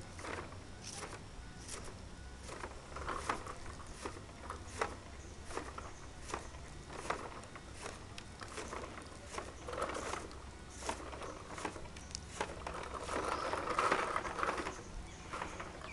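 Homemade electric leaf-collecting machine at work: irregular light clicks and crackles as its rotating brush sweeps dry leaves, over a low steady motor hum, growing busier near the end.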